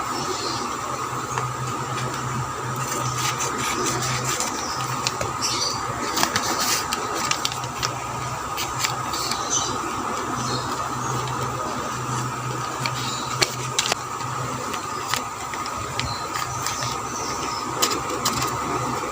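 Packaging and wrapping being handled, with irregular crinkles and clicks, over a steady hum.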